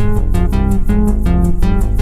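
Electronic synthesizer music from a Novation Circuit Tracks groovebox: a fast, pulsing sequenced line of short plucked-sounding synth notes over a bass line.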